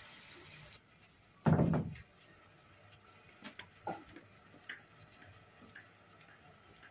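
Kitchen handling noises: a soft hiss stops under a second in, then a single loud thump about a second and a half in, followed by a few light clicks and taps of utensils and containers being moved.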